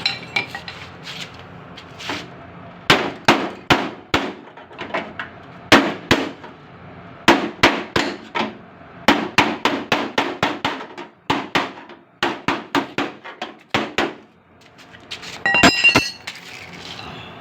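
Hammer striking the sheet steel of a car door being repaired: sharp metallic blows in quick irregular runs with short pauses, and near the end a short run of blows that ring.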